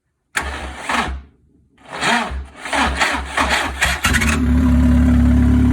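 Starter motor cranking a Renault Megane's F7R four-cylinder engine in two spells, switched in by shorting the starter terminals with pliers. About four seconds in the engine catches and settles into a steady, loud idle, a racket from a hole in the exhaust, on its first start after two years standing.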